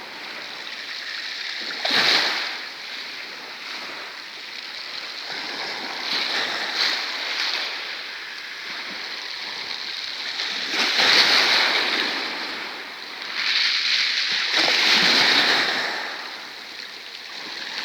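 Sea waves breaking and washing up on the shore, swelling and fading every few seconds.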